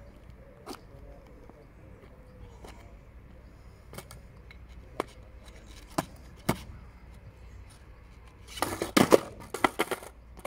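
Skateboard popped and clattering on asphalt in a quick run of loud knocks and rattles near the end, the board coming down upside down: a failed ollie. A few single taps come earlier.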